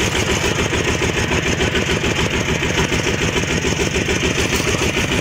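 Single-cylinder diesel engine of a Cambodian two-wheel hand tractor (kor yon) running steadily while driving, a fast even beat of firing strokes.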